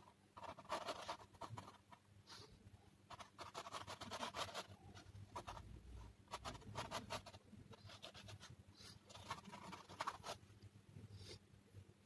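Pencil scratching across a white painting board in a series of separate strokes, each lasting up to about a second and a half, with short pauses between them; faint.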